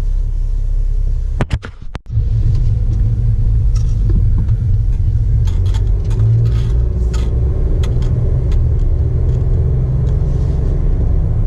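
Jeep Wrangler JK on the move, heard from inside the cabin: a steady low engine and road rumble. It breaks off briefly a little under two seconds in, and faint scattered clicks sit over it.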